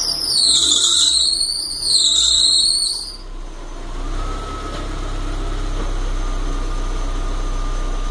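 Drive belt for the alternator and air-conditioning compressor on a VW 1.8 AP engine squealing loudly with a high, wavering pitch just after start-up, stopping about three seconds in and leaving the engine idling steadily. The owner says the belt is routed wrong.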